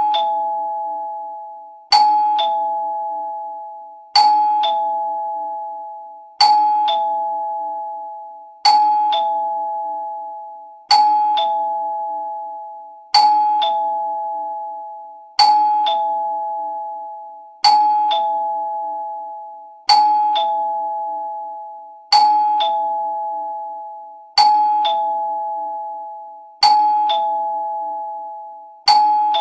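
Two-note ding-dong doorbell chime: a higher tone, then a lower one about half a second later, each ringing out and fading. It repeats about every two and a quarter seconds, some fourteen times.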